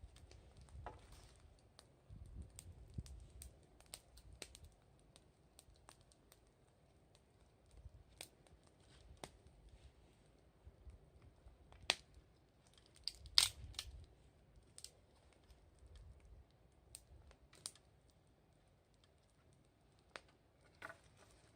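Wood bonfire burning, with scattered sharp crackles and pops, the loudest pair about 12 and 13 seconds in.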